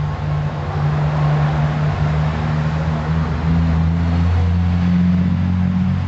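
A motor vehicle's engine running, its low hum stepping up in pitch twice in the second half as it speeds up, over a steady hiss of traffic.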